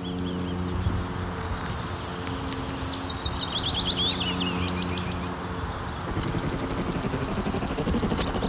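Birds chirping over soft background music, with a quick run of rapid chirps in the middle.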